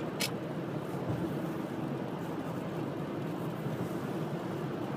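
Steady low rumbling background noise, with a brief hiss just after the start.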